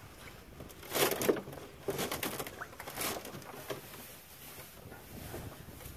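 A sheet of ice being broken and pulled out of a livestock water tub by hand: water sloshing and splashing, with several short knocks and splashes about one, two and three seconds in.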